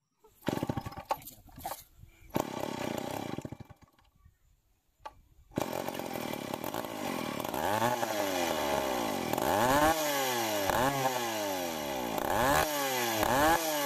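A few seconds of knocks and rustling, then from about five and a half seconds in a Stihl 070 two-stroke chainsaw engine running and being revved up and down about once a second. The engine is running on freshly adjusted breaker points.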